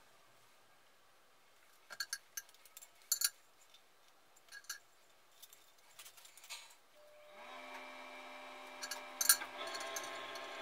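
Plastic parts of a dual-flush toilet valve clicking and knocking as they are handled and fitted together: scattered sharp clicks, the loudest near the end. About seven seconds in, a steady hum starts and keeps going.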